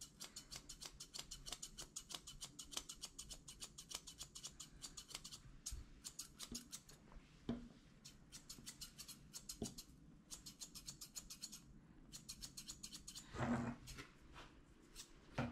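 Grooming shears snipping through a Persian cat's long fur in quick runs of about five snips a second, with pauses between runs. A louder rustle comes about two seconds before the end.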